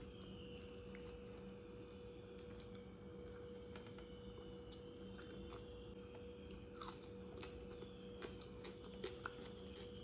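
Quiet eating sounds: chewing, and fingers working curry in a plastic bowl, with a few soft clicks and taps over a steady low hum.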